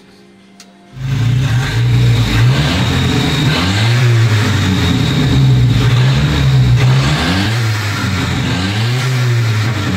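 Volvo 240 Turbo's turbocharged four-cylinder engine, which cuts in after a short lull about a second in and then runs at idle. It is revved twice by hand at the throttle, its pitch rising and falling each time. The engine has just been brought back to life.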